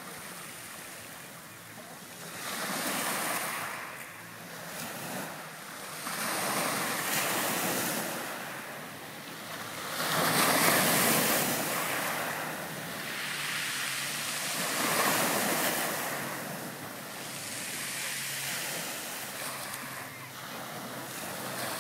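Small sea waves breaking and washing onto a pebble shore, swelling and falling back every few seconds, with the biggest wave about ten seconds in.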